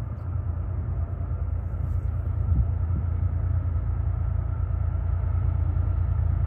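Diesel-powered freight train approaching from the distance: a low, steady rumble that grows gradually louder.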